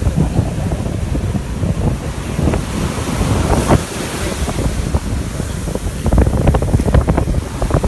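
Strong wind buffeting the microphone over rough surf breaking and washing foam up the sand. The wind rumble is constant, and the surf hiss swells about three to four seconds in.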